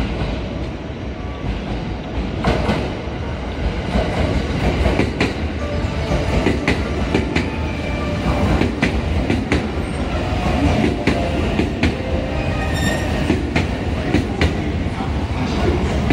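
Thunderbird limited express electric train pulling into the station. It makes a steady rumble, with its wheels clicking irregularly over the rail joints as the cars roll past.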